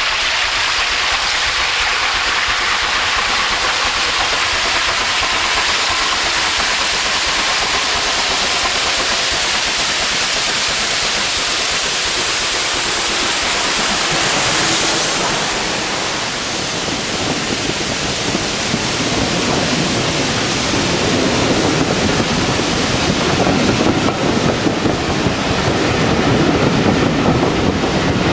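Steam locomotive passing close by: a loud rush of steam and exhaust building as it approaches and peaking about halfway through as the engine goes past. After that, a lower rumble of the coaches rolling by on the rails grows louder toward the end.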